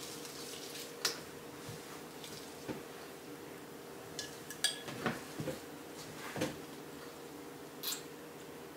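A handful of light clicks, clinks and knocks from household objects being handled, several close together in the middle, over a faint steady hum.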